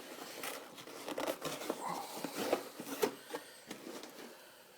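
A shipping package being cut and pried open with a pocketknife: irregular scratching, cutting and tearing of packing tape and cardboard, dying down near the end.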